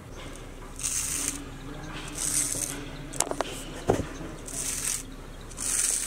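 A hand tool scraping over wet rustic-texture plaster in four short hissy strokes, with a few sharp clicks and a knock near the middle.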